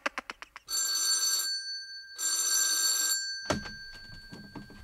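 Electric doorbell ringing twice, each ring lasting nearly a second, followed by a clunk about three and a half seconds in.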